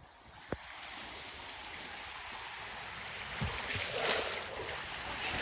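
Small waves washing over the shallows at a sandy shoreline, a steady hiss that swells, louder about four seconds in. A short knock about half a second in.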